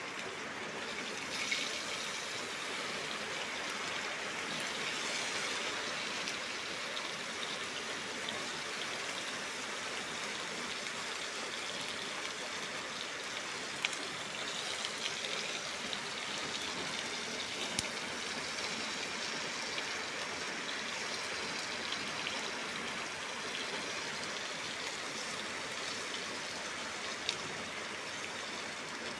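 Soaked dried squid frying in hot oil in a wok: a steady sizzle and spatter, with a few sharp pops along the way.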